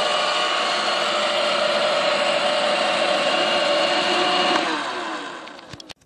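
iRobot Roomba 563 Pet robot vacuum running, its motors making a steady mechanical whine. From about four and a half seconds in the motors wind down and fall silent near the end, with a couple of clicks.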